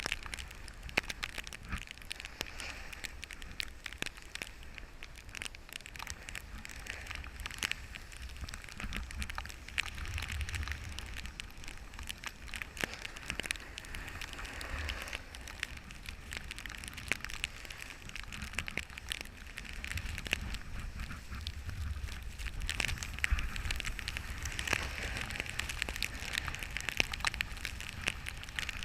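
Crackling, rustling noise of wind and snow against a GoPro action camera, with many small clicks and a low wind rumble that swells and fades.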